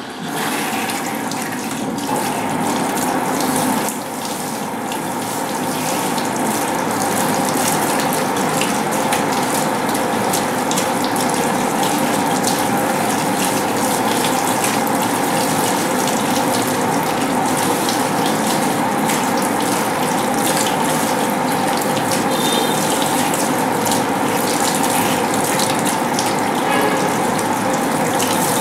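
Water running steadily into a salon hair-washing basin, splashing over hair as it is rinsed; the flow comes on at the start.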